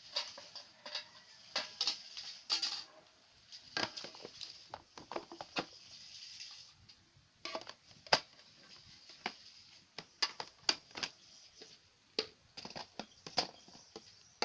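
Irregular light clicks and taps as slime-making materials and a bowl are handled and mixed by hand.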